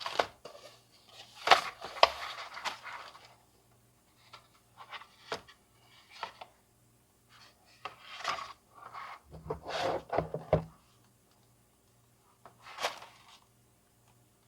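A plastic tablet cover being handled and fitted onto a tablet: intermittent rubbing and scraping with a few sharp clicks.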